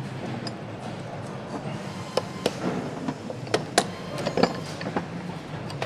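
Sharp clicks and knocks of metal parts being handled as connecting rods are fitted to a BMW R 1200 GS crankshaft, five or six of them bunched in the middle, over a steady factory hum.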